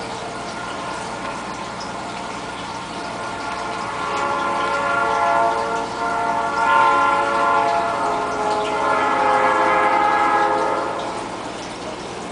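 Water splashing steadily from the aquarium's filter outflow, with a chord of several steady tones that swells up about four seconds in, peaks, and fades away near the end.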